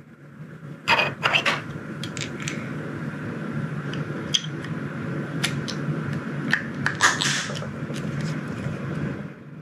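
Small objects being handled: scattered sharp clicks and short scrapes, busiest about a second in and again around seven seconds, over a low steady hum.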